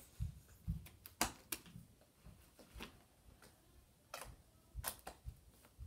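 Thick slime being kneaded and pressed by hand, giving irregular sharp sticky clicks and a few soft low thumps.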